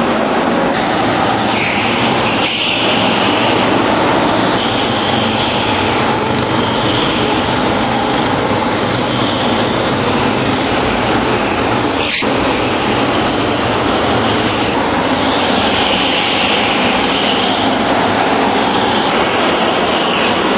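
Several go-kart engines running hard as the karts lap an indoor track inside an enclosed concrete hall. The dense, steady engine noise swells and fades as karts pass, with a single sharp click about twelve seconds in.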